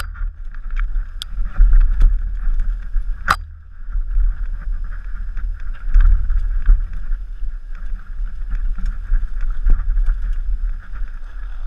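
Mountain bike rolling fast down a rough trail: wind buffets the microphone in a heavy rumble, over a steady hiss with scattered rattles and knocks from the bike. One sharp knock stands out about three seconds in.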